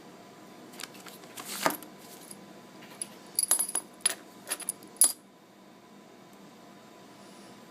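Small metal parts of a rebuildable atomizer clicking and clinking as they are handled: a run of sharp taps between about one and five seconds in, some ringing briefly and high, then quiet room noise.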